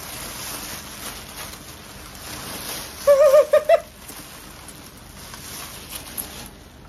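White honeycomb packing paper rustling and crinkling as a plate is unwrapped from it; the rustling dies down near the end. About three seconds in, a short wavering vocal sound, like a giggle or hum, rises above it.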